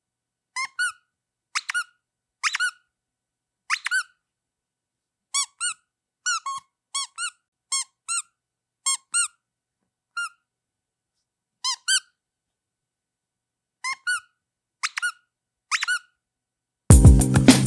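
Rubber duck squeak toy squeezed over and over, giving short squeaks that bend in pitch, mostly in quick pairs with short silences between. Music starts suddenly near the end.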